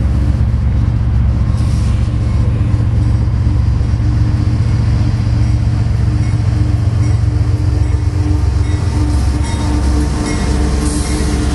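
Diesel engines of an approaching Union Pacific freight train's locomotives running, a steady low rumble, with a little more hiss near the end as the train nears.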